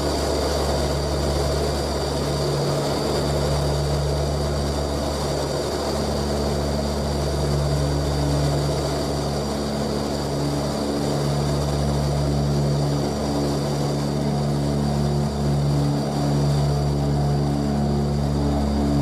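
Antonov An-12's four AI-20 turboprops heard from the cockpit while climbing out: a steady low propeller drone with a thin high whine above it.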